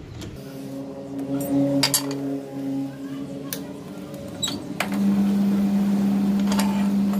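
Light metal clinks and a steady hum while the armature is fitted in the lathe. About five seconds in, the metal lathe starts and runs with a strong, steady hum, spinning the armature.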